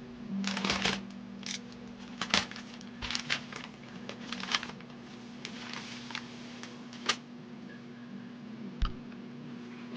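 Hands handling packaging and small parts: irregular clicks, taps and short rustles of plastic and cardboard, over a steady low hum.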